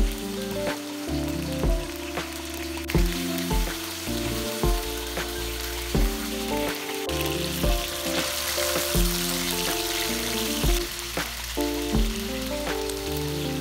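Chicken pieces sizzling steadily as they fry in oil in a pan, the sizzle swelling a little partway through, under background music with a steady beat.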